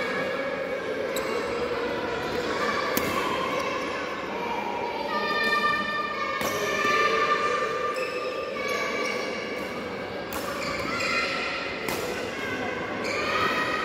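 Badminton rackets striking a shuttlecock during a rally, sharp hits every second or two that ring in a large hall.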